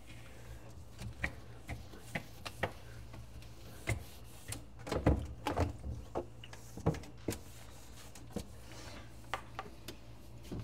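Scattered light knocks, clicks and rubbing from things being handled and wiped during fridge cleaning, busiest about five seconds in, over a low steady hum.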